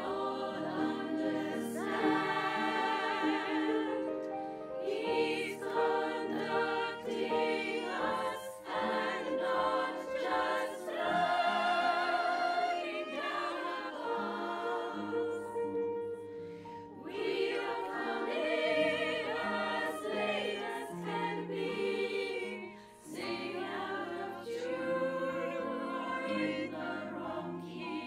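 Women's choir singing in harmony with vibrato, over a piano accompaniment.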